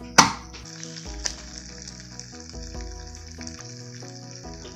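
The lid of a small electric waffle iron shuts with a sharp clack just after the start. Then butter and popcorn kernels sizzle steadily on the hot plates.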